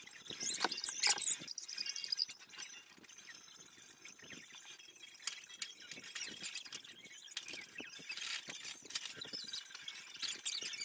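Fingers untwisting and separating flat twists of hair set with flaxseed curl custard: irregular crackling, rustling and small squeaks of stiff, product-coated hair. The sounds are busiest in the first second or so and again near the end.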